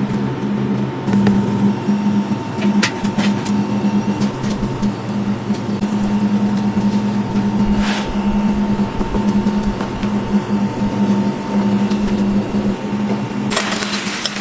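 Steady machine hum with a thin steady high tone that stops shortly before the end, and a few scattered light clicks. Near the end a hiss with rapid crackles starts up.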